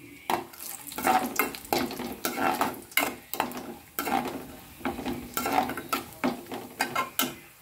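Cashews frying in oil and ghee in a metal kadai, a metal ladle stirring and scraping against the pan in quick repeated strokes over a light sizzle.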